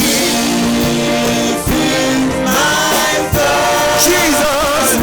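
Gospel worship song performed live: a choir sings long held notes of the refrain over the band's backing.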